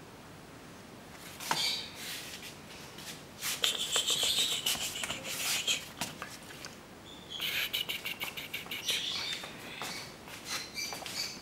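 Two four-week-old kittens scampering on a tile floor: rapid claw clicks and skitters with high, chirping squeaks, coming in bursts and busiest in the middle and again past the halfway point.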